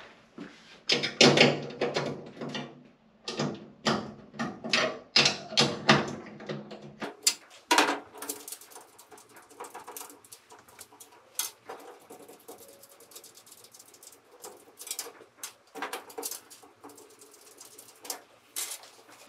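Metal clicks, scrapes and rattles of a nut driver and hand working on an L bracket inside a steel money-changer cabinet, busy for the first several seconds, then sparser clinks.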